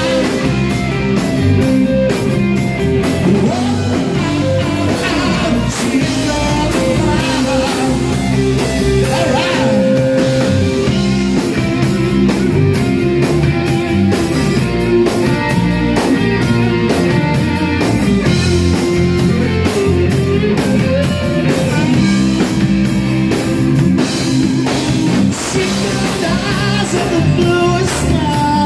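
Live rock band playing loud, with a drum kit, electric guitar and a male lead singer.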